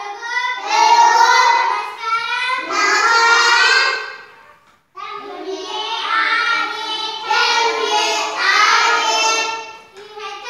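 Children's voices chanting a lesson aloud in a sing-song, phrase by phrase, with held notes and a brief break a little under halfway through.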